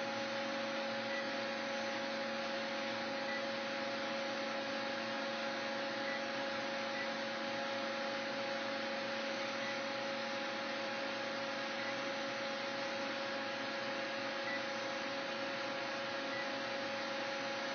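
Steady, unchanging hum with a few fixed tones over a hiss: a powered-up 1995 Cincinnati Sabre 1000 CNC vertical mill standing running, with no cutting.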